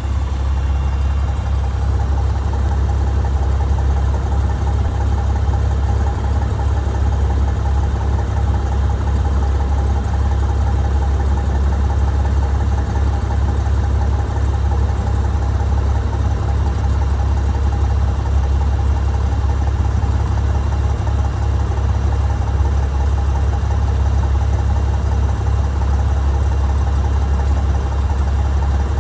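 Steady low engine drone heard from inside a small aircraft's cockpit, unchanging throughout, with a thin steady whine over it.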